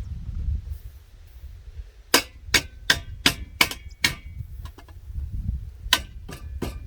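Hammer blows on metal with a slight ring: six quick strikes about two seconds in, then three more near the end.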